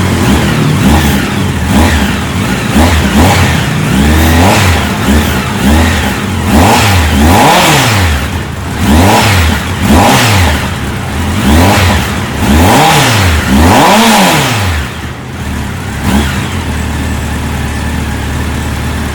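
Honda CB1300SF inline-four blipped repeatedly through a Yoshimura Leptos slip-on exhaust: about a dozen quick free revs, each rising and falling back, then it settles to a steady idle for the last few seconds.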